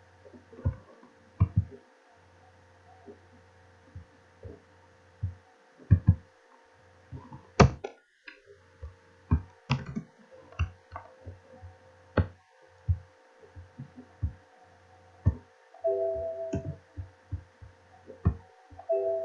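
Computer keyboard typing and mouse clicks, irregular, over a steady low electrical hum. Twice near the end a short chime of several notes sounds, the Windows alert chime as a Visual Basic run-time error box comes up.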